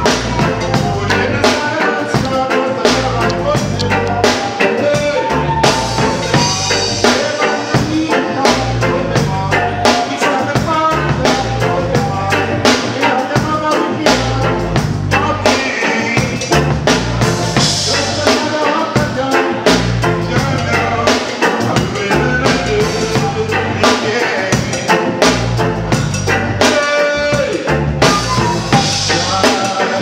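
Live reggae band playing: a drum kit keeping a steady beat under electric guitar, with a male singer singing into a handheld microphone.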